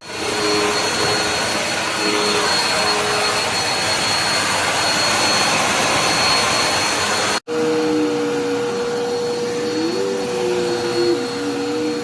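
Dirt Devil Endura Lite bagless upright vacuum running, a dense steady rush of air and motor. It cuts out for an instant about seven and a half seconds in and comes back with a steady whine and a lower, wavering tone.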